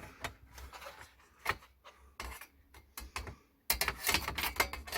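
The back cover of a Lenovo all-in-one desktop computer being pushed and slid onto the case: scattered clicks and rubbing as the cover's edges and tabs are worked into place, busier near the end.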